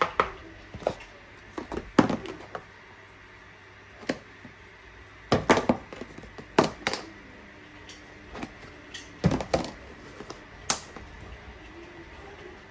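Kitchen clatter: irregular knocks and clicks of utensils and dishes being handled, about a dozen in all, with a few louder ones in clusters.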